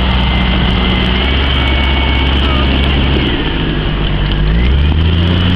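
Jeep Cherokee's engine pulling the off-roader slowly up a muddy gully, its note easing off about a second in and revving up again near the end.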